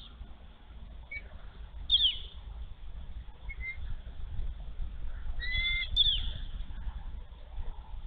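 Bald eagle giving a few short, high, thin chirping calls, the loudest a sharp falling note about two seconds in and a chattering cluster near six seconds, over a steady low rumble.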